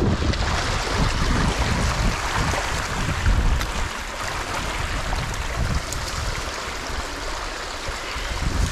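Water rushing steadily through a breach pulled open in a beaver dam, the dammed-up pond draining through the gap.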